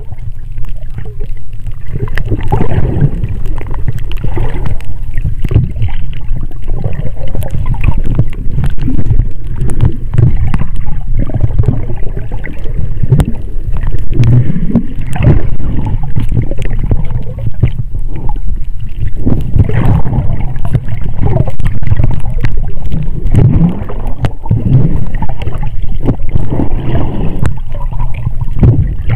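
Seawater sloshing and gurgling around a camera microphone held underwater: a loud, muffled, uneven churning, deep-toned, with irregular surges.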